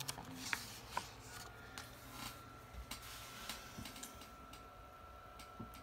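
A picture book's paper page being turned and handled: faint rustling with a few soft ticks and taps, the sharpest near the start and about a second in.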